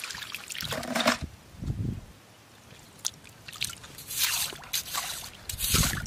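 Wet mud and water splashing and dripping as handfuls of muddy sand are scooped and dropped into a shallow puddle, with squelching steps of rubber boots in the water. It comes as a few separate splashes, about a second in, around four seconds in and near the end.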